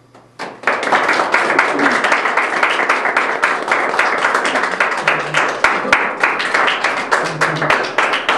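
Small audience applauding. The clapping breaks out about half a second in, right after the last line of a speech, and stays steady.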